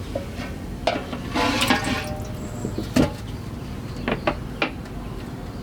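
Pots and utensils being handled: a few sharp knocks and clinks, with a short rush of noise about a second and a half in.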